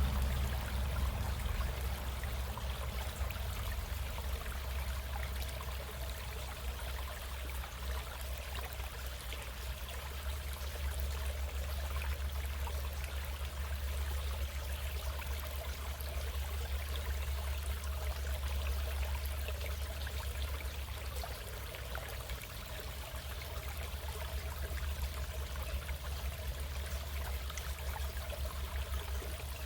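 Stream water running steadily, an even rushing with a low rumble underneath.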